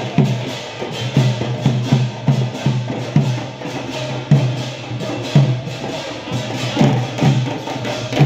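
Loud percussion music: drums strike a heavy, slightly uneven beat about once a second over a dense, high clatter of percussion.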